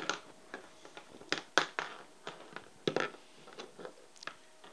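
Irregular light clicks and knocks of fencing body-cord connectors and wires being handled and set down on a tabletop, the loudest about a second and a half in and near three seconds.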